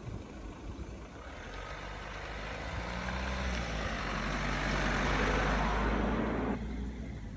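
A vehicle drawing near, with a steady low engine hum under a rushing noise that grows louder, then cuts off abruptly about two-thirds of the way through.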